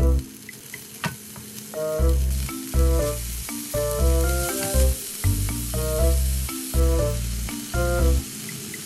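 Diced bacon, onion, green pepper and shrimp sizzling as they fry in a nonstick pan, a steady hiss that is strongest in the middle. Background music with a bass note about every second plays over it and is the loudest thing heard.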